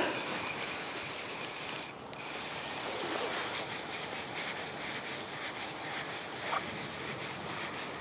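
Steady outdoor rushing noise, with a few quick light clicks about one and a half to two seconds in.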